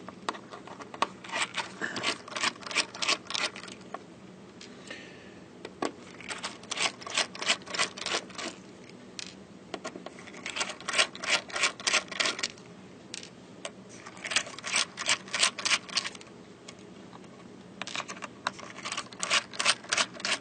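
Screwdriver backing small screws out of a hard drive's cover: five bursts of rapid clicking, each a couple of seconds long, with short pauses between.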